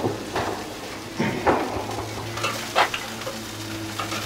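Chicken sizzling on a kamado charcoal grill, with several short knocks and clatters of utensils at irregular moments.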